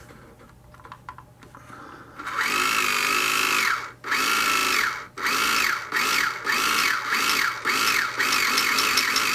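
Electric motor of a Carrera Digital 1/24 Porsche 911 RSR slot car, whining as the throttle is blipped on and off in about eight bursts starting two seconds in. Each burst's pitch rises and then drops away, and the bursts get shorter and quicker. The throttle is released between bursts to brake the car and show its brake lights.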